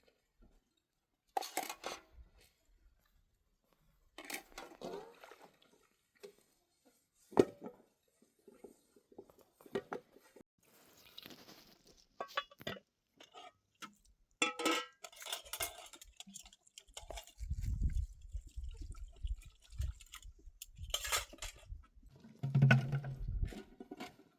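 Scattered clinks, knocks and clatter of hard objects being handled, with a sharp knock about seven seconds in the loudest. In the last seven seconds, low rumbling thumps join in.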